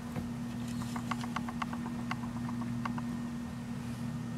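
A hamster scrabbling through pelleted paper bedding: light, irregular ticks and rustles, busiest in the first three seconds, over a steady low hum.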